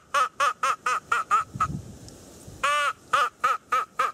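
Loud mallard-style quacking: one long drawn-out quack followed by a quick run of short quacks, about five a second, and then the same pattern again. A dull low knock falls in between, about one and a half seconds in.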